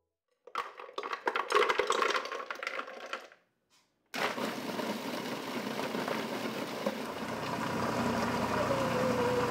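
Frozen berries clattering into a blender jar for a couple of seconds. After a short pause the blender motor starts at about four seconds in and runs steadily, pureeing the frozen berries.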